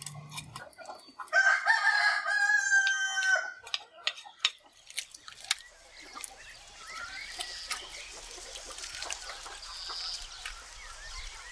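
A rooster crows once, a long held call beginning about a second in and lasting about two seconds, the loudest sound here. Afterwards hens cluck softly, amid scattered clicks and scrapes of a knife cleaning a fish.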